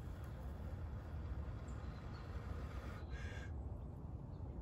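Breath blown in steady puffs into a smouldering bundle of pine-needle tinder to coax the ember into flame. A short bird call sounds about three seconds in.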